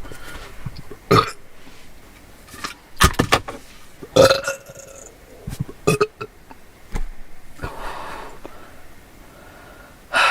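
A person burping: several separate short belches a second or two apart.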